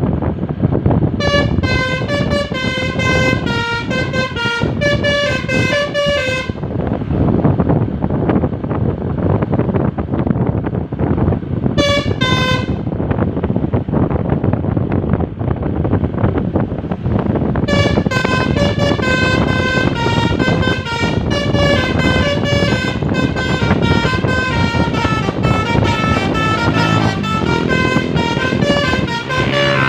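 A bus's basuri telolet horn plays a quick tune of short musical notes over loud, steady engine and road noise. It comes in three spells: about five seconds near the start, a brief burst around the middle, and an unbroken run through the last twelve seconds.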